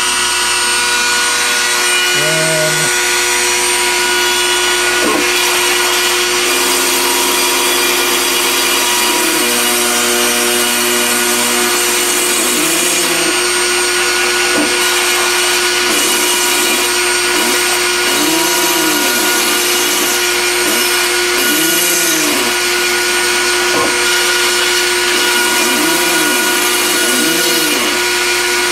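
CNC router cutting: the spindle motor runs steadily at full speed, and the axis stepper motors whine over it in changing pitches. Their tone holds level on straight moves, then sweeps up and down again and again as the axes trace circles.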